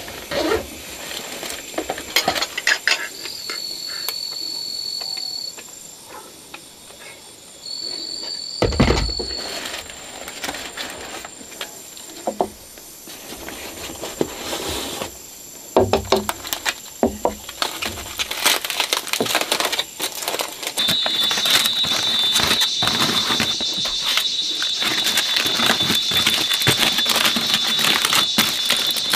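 Rustling and clicking as gear is handled on a bamboo floor, then crinkling and rustling of aluminium foil being unfolded near the end. A thin steady high tone comes in briefly twice in the first ten seconds and again, steadily, for the last third.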